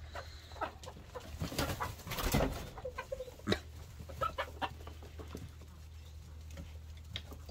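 Domestic hens and a rooster clucking softly as they feed, with scattered short pecking clicks and rustles. There is a louder rustle about two seconds in.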